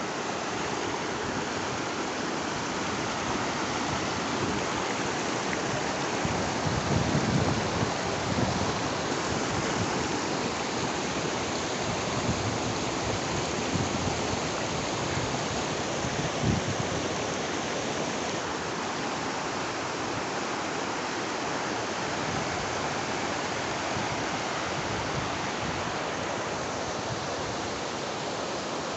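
Flowing river water rushing steadily, with a few brief louder low swells along the way.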